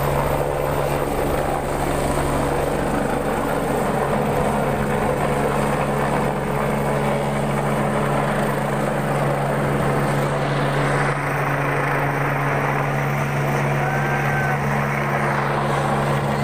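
Helicopter taking off and climbing away: a loud, steady rotor and engine noise with a constant low hum beneath it, easing slightly in the upper range about two-thirds of the way through.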